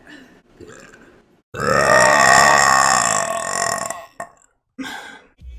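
A woman burping: one long, loud burp of about two and a half seconds, starting about a second and a half in, after some softer sounds.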